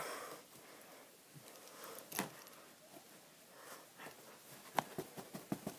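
Faint handling noise from a stuffed toy and a pair of shoes being moved about: a soft knock about two seconds in, then a run of light taps and clicks near the end.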